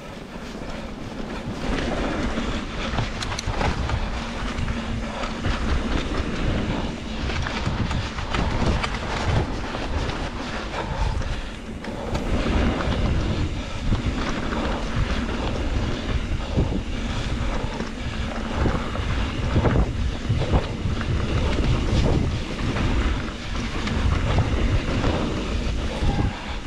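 Trek Slash 7 mountain bike descending a dirt flow trail at speed: wind rushing over the action-camera microphone, tyres rolling on dirt, and the bike rattling and clicking over bumps.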